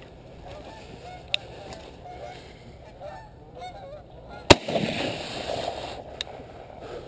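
A flock of geese honking in flight. A single shotgun shot about four and a half seconds in rings on in a short echo, and the geese keep honking after it.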